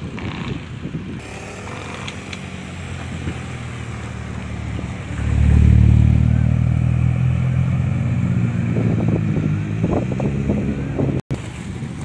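A road vehicle's engine passing close by, growing to its loudest about halfway through and then fading away.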